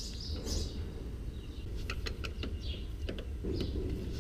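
A hand grease gun being handled at a tractor's steering joints: a few light metal clicks and scrapes.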